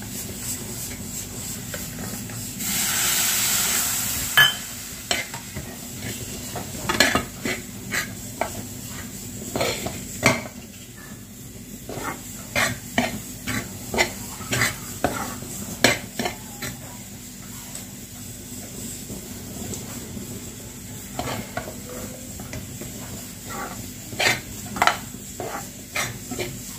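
Steel spoon stirring and scraping crumbly besan zunka in a metal kadhai, with many sharp clinks of the spoon against the pan. About three seconds in there is a brief sizzling hiss.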